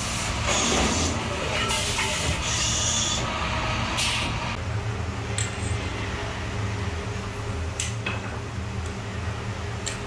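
Metal lathe cutting a brass valve-handle part: the cutting tool hisses over a steady machine hum. About four and a half seconds in the hiss stops and the hum carries on, with a few sharp metal clinks of brass fittings being handled.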